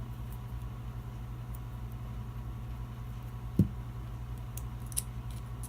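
Steady low machine hum, with a single low thump about three and a half seconds in and a light click near the end.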